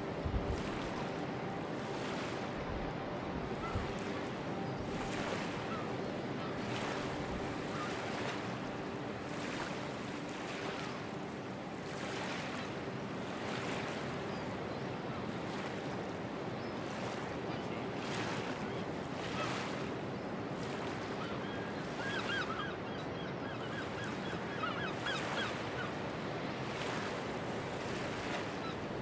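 Small waves breaking and washing up a sandy beach, the surf swelling and falling back every second or two. A bird calls in a quick run of repeated notes about three-quarters of the way through.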